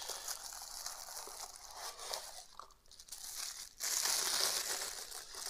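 Plastic wrapping crinkling and rustling against a styrofoam packing insert as a wrapped statue base is pulled out and handled. It gets louder about four seconds in.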